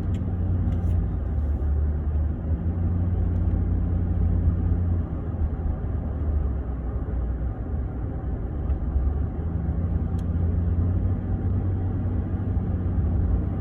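Steady low engine and road rumble heard from inside a moving truck's cab.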